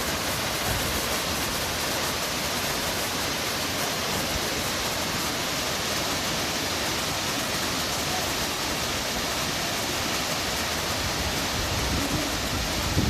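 Waterfall: the steady, even rush of falling water. A few low bumps come in near the end.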